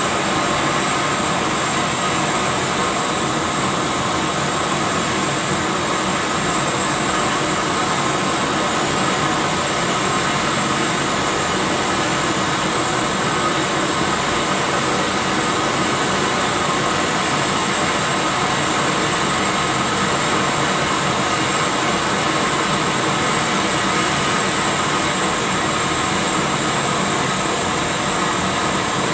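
Gas-and-air brazing torch and its fans running together as one loud, steady, unbroken noise while the torch heats mild steel to brazing temperature.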